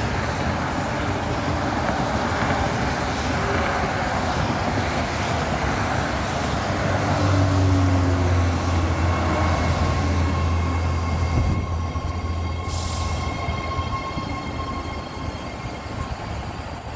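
BART train pulling into the platform: a rising rumble and wheel noise as it comes in and passes, with a low hum at its loudest. Then a steady whine as it slows, with a short hiss about thirteen seconds in.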